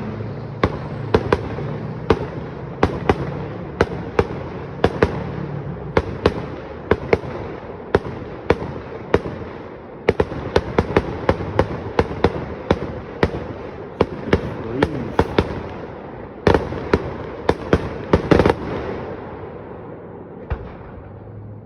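Fireworks going off in a fast, irregular series of sharp bangs, with a quicker cluster around the middle and a few more bangs a few seconds before the end before it thins out.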